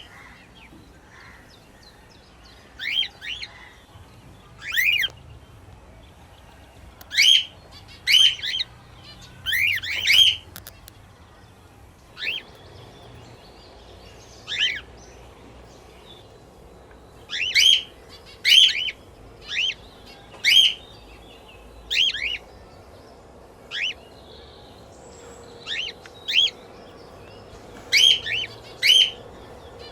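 Small pet parrots chirping: about twenty short calls, each falling in pitch, given singly or in quick pairs at irregular intervals.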